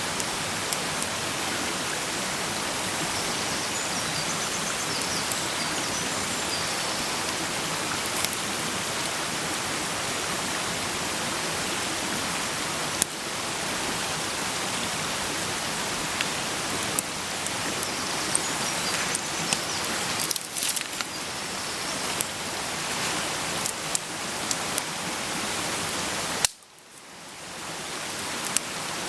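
Food sizzling in a frying pan over a campfire: a steady hiss with scattered sharp pops and crackles. It cuts out abruptly near the end and comes back up over a couple of seconds.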